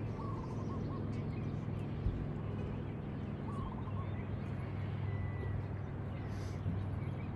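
A few short bird calls, a wavering note near the start and again about halfway and a thin whistle shortly after, over a steady low rumble of outdoor background noise.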